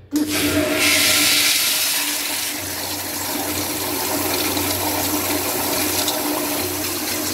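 Commercial flushometer toilet flushing: a sudden loud rush of water with a steady tone under it. It is loudest for the first couple of seconds, then runs on steadily as the bowl clears and refills.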